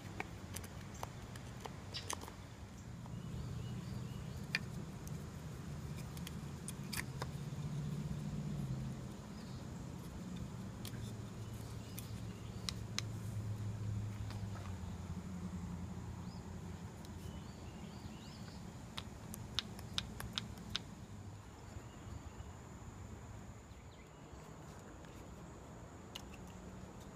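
Scattered small clicks and taps of a knife and cedar sticks being handled, over a low hum that is louder in the first half.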